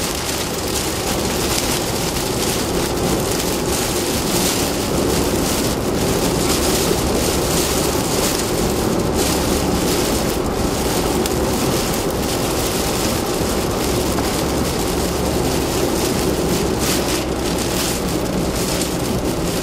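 Steady rushing noise inside a moving car: tyre and road noise with a low rumble, mixed with rain on the car.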